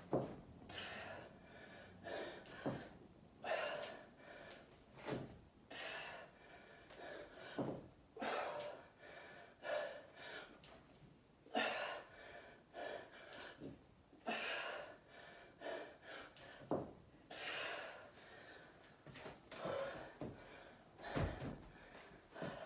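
A woman's heavy, gasping breaths, roughly one a second, as she lifts dumbbells: she is out of breath from exertion. Near the end, a thud as the dumbbells are set down on a wooden floor.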